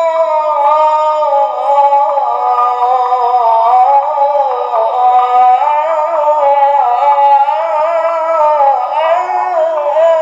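A man's solo voice chanting an ibtihal, an Islamic devotional supplication, in long drawn-out melismatic phrases whose pitch glides and wavers without a break. It is heard played back through a computer's speakers.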